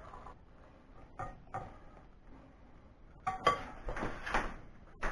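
Metal spoon stirring rice pudding in a glass bowl: soft scraping with a few short clinks against the glass, the loudest cluster about three and a half to four and a half seconds in.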